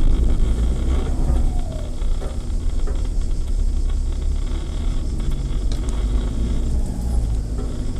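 Engine of an off-road 4x4 running steadily, with a few brief knocks about three-quarters of the way through.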